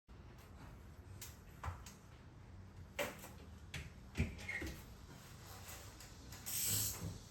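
Scattered clicks, knocks and rubbing handling noises over a low room hum, with a brief louder hiss near the end.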